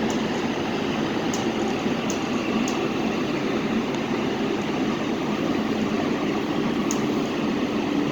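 Steady running noise heard inside a Metro A Line light-rail car travelling through a tunnel: an even rumble and hum, with a few faint ticks.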